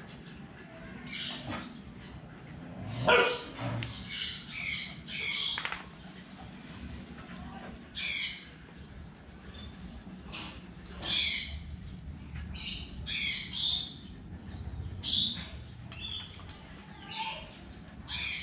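Short, high-pitched animal calls repeated at irregular intervals of one to two seconds over a low background hum. The loudest call, about three seconds in, is longer and reaches lower than the rest.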